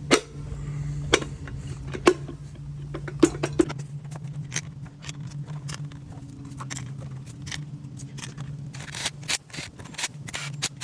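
Metal hand tools clinking and scraping on engine parts: a few sharp clicks in the first seconds, then a quick irregular run of clicks near the end, over a steady low hum.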